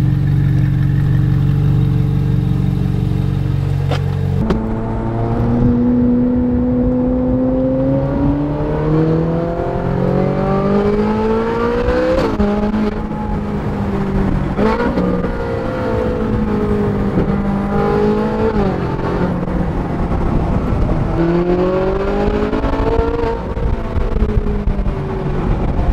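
Ferrari 458 Italia's naturally aspirated V8 with an iPE exhaust idling steadily for about four seconds. It is then heard from inside the cabin pulling through the gears: the engine note rises under acceleration and drops sharply at each of several upshifts.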